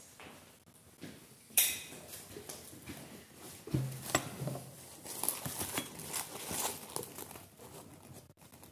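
Handling noises: a sharp click about one and a half seconds in, then a low thump, rustling and small knocks as a person comes up close, with the dry crackle of a large, dark, cured Virginia tobacco leaf being handled.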